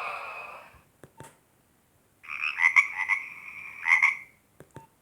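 Nokia 1208b phone speaker playing a short rasping, croak-like ringtone about two seconds long, starting about two seconds in. The end of the previous ringtone fades out at the start, and a few faint clicks come just before and just after the tone.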